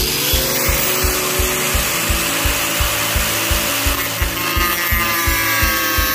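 Angle grinder cutting through a steel bar: a loud, even grinding noise with a motor whine that sinks a little in pitch about four seconds in as the disc bites into the metal. Background music with a steady beat plays underneath.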